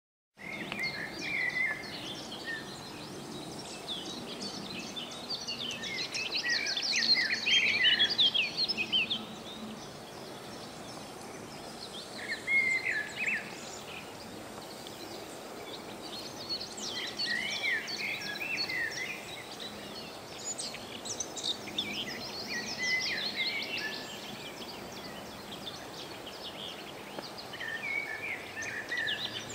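Songbirds singing in bursts of quick, varied chirping notes, a phrase every few seconds, the loudest stretch about seven seconds in, over a steady outdoor background hiss.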